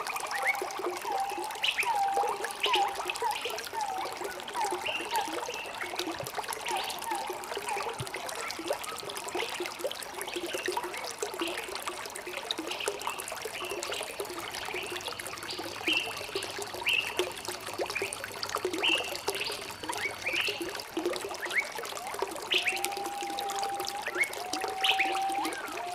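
Small stream trickling steadily while several birds sing over it in short chirps and whistles, with a quick run of repeated notes at the start and a few longer held whistles near the end.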